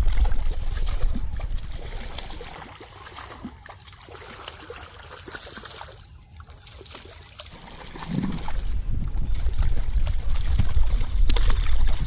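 River water splashing and trickling as a small sucker fish is brought in and handled at the water's edge, with a low rumble on the microphone that eases off for a few seconds in the middle and returns about eight seconds in.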